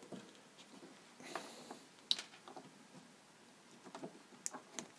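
Faint handling sounds: a brief rustle, then a few small sharp clicks, as alligator-clip leads and wires are handled at a drone battery.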